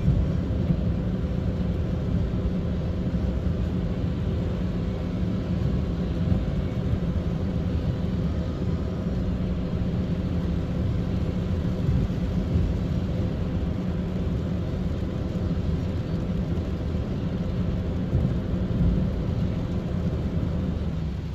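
Inside a car's cabin while driving in traffic on a wet road: a steady low rumble of engine and tyres, with a faint steady hum.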